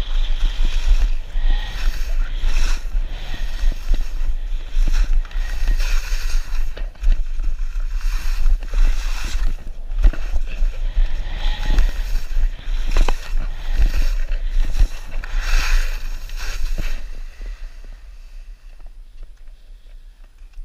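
Skis scraping and carving over snow, with wind buffeting the action camera's microphone in a heavy low rumble. The scraping swells and fades in rough pulses, then eases off about three-quarters of the way through as the skier slows.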